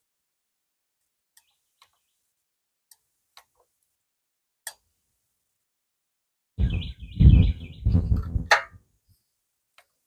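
A few faint, sharp clicks spaced over several seconds. About six and a half seconds in comes two seconds of loud knocking and rustling handling noise, with a sharp click near its end.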